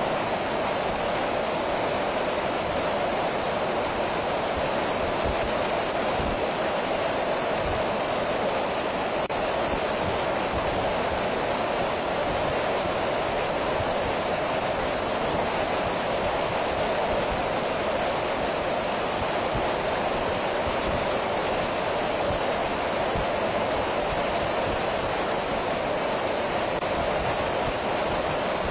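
Steady rushing noise of aircraft in flight, engine and airflow blended into one even roar with a hum in the middle range.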